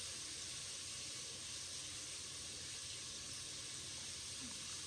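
Steady faint high hiss of background noise, without distinct chewing sounds.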